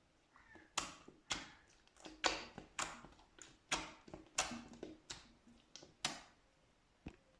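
Slime being pressed and squeezed by hand, making a dozen or so irregular sharp pops and squelches that stop about six seconds in, with one more near the end.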